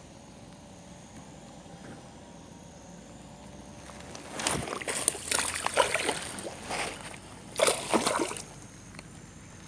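Water splashing and sloshing close by, in two bouts: one starting about four seconds in, and a shorter one near eight seconds.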